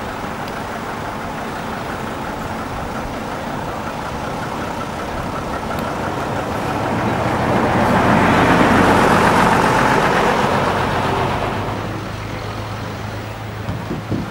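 A classic diesel coach driving slowly past close by: its engine and tyre noise swell as it passes, loudest about eight to ten seconds in, then fade. A couple of short knocks come near the end.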